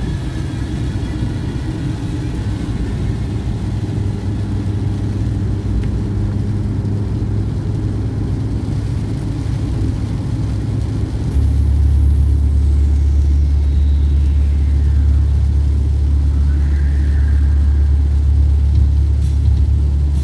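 Steady road and engine noise inside a Daihatsu car's cabin at about 85 km/h. About 11 s in a deeper rumble comes in and the noise gets louder.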